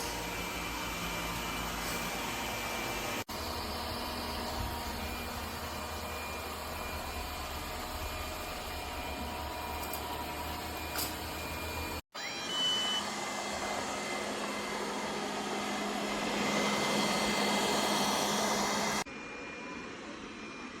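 Robot vacuum cleaner running with a steady whir, in spliced clips that cut off abruptly about 3, 12 and 19 seconds in; the last stretch is quieter.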